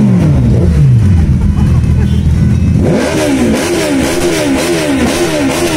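Superbike engine revved loud, its pitch falling back over the first second or so. From about three seconds in the throttle is blipped over and over, the pitch rising and falling about twice a second.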